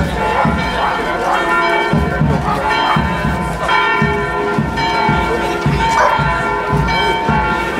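Church bells ringing, strokes following one another about twice a second with their tones hanging on and overlapping, over people talking.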